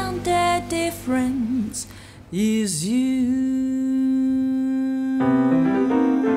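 A jazz female vocalist with piano accompaniment: a short sung phrase, then a scoop down and up in pitch into one long held note. Piano chords come in under the held note about five seconds in.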